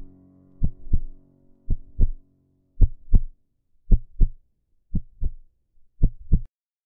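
Heartbeat sound effect: slow, even double thumps, lub-dub, about one beat a second, seven beats, stopping just before the end.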